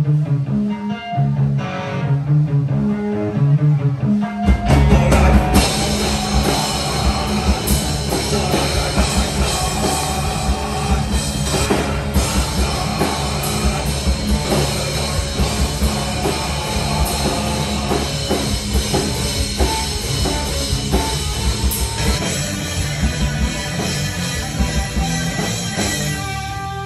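Live rock band playing with distorted electric guitars, bass guitar and drum kit. It opens on a sparse, rhythmic riff, and the full band with drums crashes in about four seconds in and keeps driving on.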